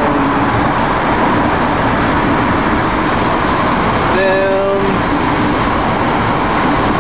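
Steady road and engine noise inside a moving car, with a brief voice about four seconds in.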